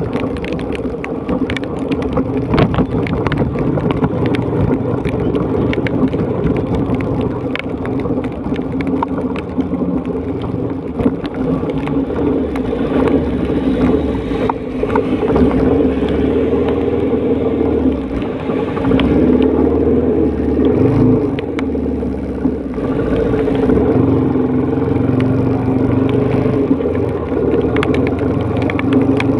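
Motorcycle engine running at road speed, its note stepping up and down a few times with the throttle, over the hiss of rain and tyres on the wet road, with sharp ticks of raindrops in the first part.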